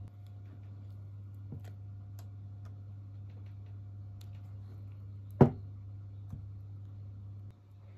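Kitchen utensils being handled: a few light ticks and one sharp knock about five and a half seconds in, over a steady low hum.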